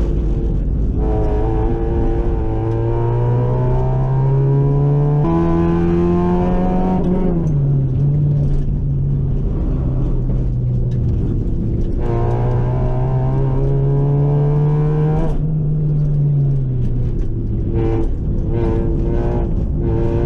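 Honda Civic EK hatchback's four-cylinder engine under way on track, pulling up through the revs with a steadily rising pitch. It falls off sharply about seven seconds in and again around fifteen to sixteen seconds, as the driver lifts or shifts, then picks up again.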